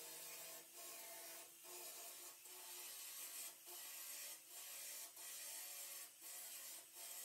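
Handheld belt sander grinding down weld beads on a steel truck-bed seam to dress the weld. It makes a steady grinding hiss with a faint motor whine, broken by brief dips about once a second as the sander is lifted between passes.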